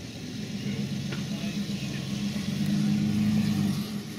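A motor engine running steadily with a low hum. It grows louder for about a second past the middle, then settles back.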